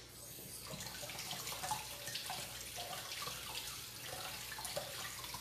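Kitchen tap running at the sink while a tomato and a lime are rinsed under the water.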